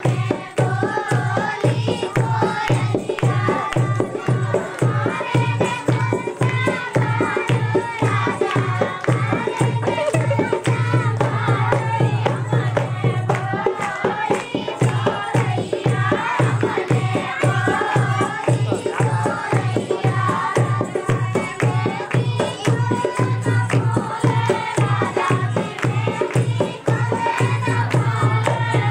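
Dehati folk dance song: a high singing voice over a steady drum beat of about two and a half strokes a second, with rattling percussion.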